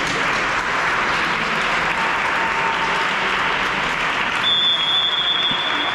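Audience applauding steadily. About four and a half seconds in, a long, steady blast of a referee's whistle joins the applause.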